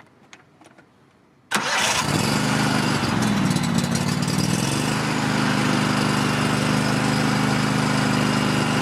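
Cub Cadet GT2544 garden tractor's V-twin engine starting about a second and a half in. Its speed dips briefly and recovers, then it runs steadily.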